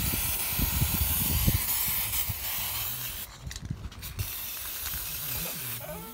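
Aerosol can of glitter spray paint hissing as it sprays onto a plastic go-kart seat, in two long bursts with a short break a little past three seconds in. A few low bumps in the first second and a half.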